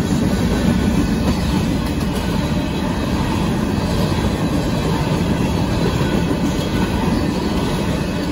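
Union Pacific grain train's covered hopper cars rolling past at speed, a steady rumble of wheels on the rails.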